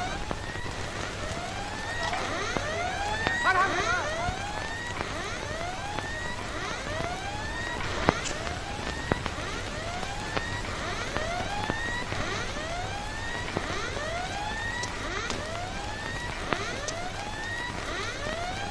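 Siren-like whooping: many overlapping tones that each sweep upward and level off, repeating about one to two times a second, over a low steady hum, with a couple of sharp clicks.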